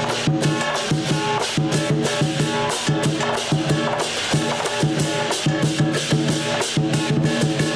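Chinese lion dance percussion: a big drum, gongs and cymbals beaten in a fast, steady rhythm, with the gongs ringing on between strikes.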